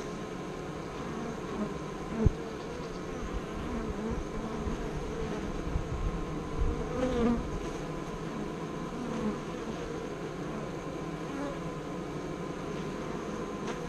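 Honeybees buzzing as they fly in and out past the hive entrance, the buzz wavering in pitch and swelling as single bees pass close. A sharp low thump about two seconds in, with a few softer ones later.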